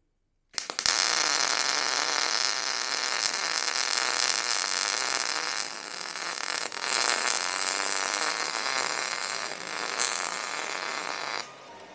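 Welding arc crackling steadily as a weld is run on a steel clamp. It starts about a second in, eases briefly about halfway through and again near the end, and stops shortly before the end.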